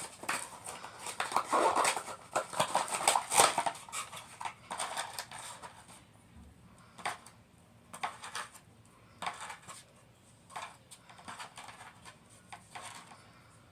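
Toy packaging and small plastic pieces being handled: dense rustling and clicking for the first few seconds, then scattered single clicks and taps.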